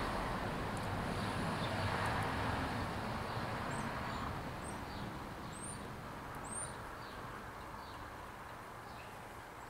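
Outdoor background noise, steady and slowly fading, with a few short high bird chirps in the middle.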